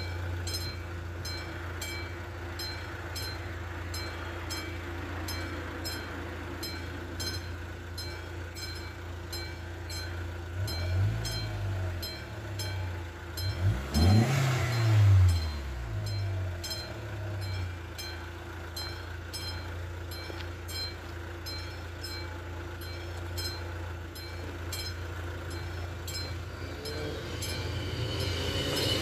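Level crossing warning bell striking at an even, quick beat, a bit under two strokes a second, over a steady low hum. A road vehicle drives past about halfway through. Near the end an approaching train grows louder and its wheels begin to squeal.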